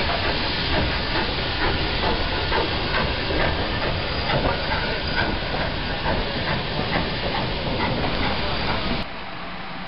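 Steady hiss of steam from a steam locomotive, which stops abruptly about nine seconds in.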